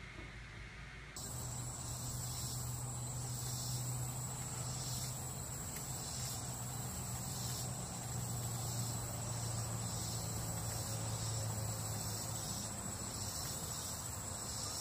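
Steady high-pitched insect chirring with a low hum underneath. It starts abruptly about a second in and holds on evenly.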